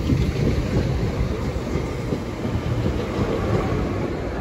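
A train moving on the track: a steady low rumble of wheels on the rails.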